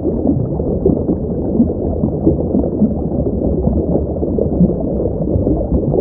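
A sound effect meant as the call of a Liopleurodon, a prehistoric marine reptile: a continuous low, muffled gurgling rumble with nothing in the high range, steady in loudness.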